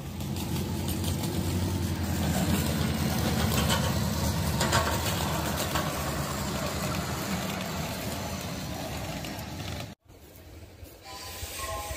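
Ride-on miniature train rolling past on its track, a steady low rumble of wheels on rail with faint clicking, cutting off abruptly about ten seconds in.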